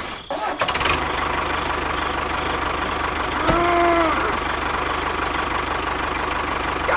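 A small engine running steadily with a fast, even knock. About three and a half seconds in, a short tone rises and falls.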